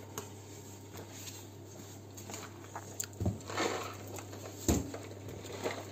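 Packets being handled and lifted out of a cardboard box: rustling of packaging and cardboard with a couple of soft thumps, over a steady low hum.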